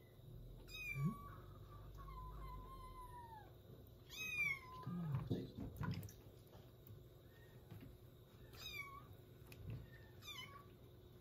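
Young kitten mewing during a bath: about four high mews, each falling in pitch, a few seconds apart, with a longer drawn-out call after the first.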